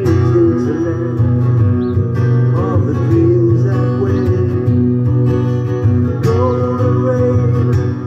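A steel-string acoustic guitar strummed steadily, with a man singing along.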